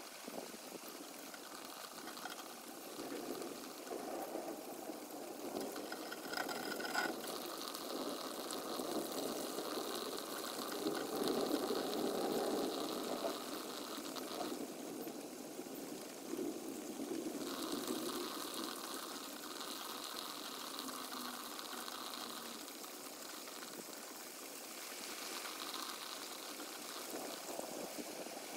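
Rain and wind during a thunderstorm, sped up four times, heard as a steady rushing hiss that swells and eases.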